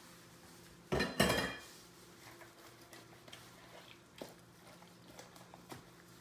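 A ceramic plate clatters down onto a hard surface about a second in, with a ringing clink and a second knock just after. Soft, faint handling clicks follow as a whole raw chicken is lifted and turned in a stainless steel pot.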